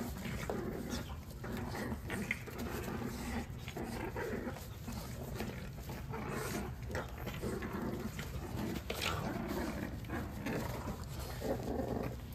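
French bulldog puppies play-wrestling, grunting and growling at one another, with paws scuffling on the puppy pads.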